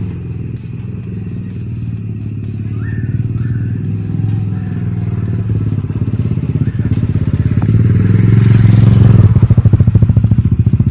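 Small dirt bike engine running with a fast putter, growing louder from about seven seconds in and loudest near the end. It is running on its newly fitted carburettor.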